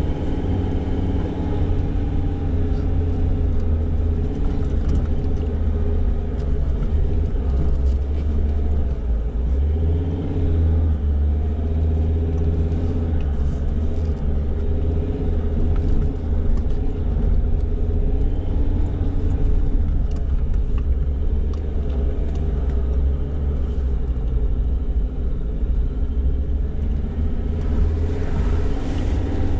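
A Ford Ranger four-wheel drive on a dirt track, heard from inside the cabin. It makes a steady low engine and road rumble, and the engine note rises and falls gently as the revs change.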